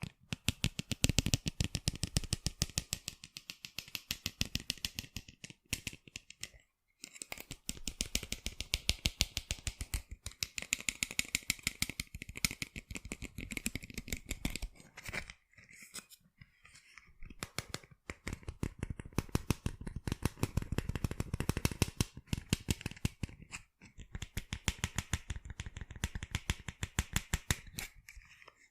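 Fingers tapping rapidly on sunglasses, a quick run of sharp clicks several times a second, in stretches of a few seconds with brief pauses between them.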